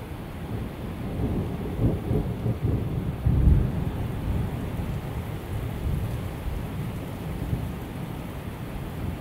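Thunder rumbling over steady heavy rain, swelling to its loudest about three and a half seconds in, then dying away into the rain's hiss.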